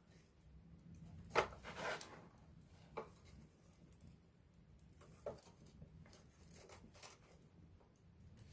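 Wood fire crackling: irregular sharp snaps and pops, the loudest about a second and a half in with a cluster just after, then a few scattered smaller ones, over a faint low rumble.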